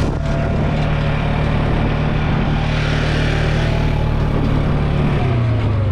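A small engine running steadily, its speed dropping slightly near the end.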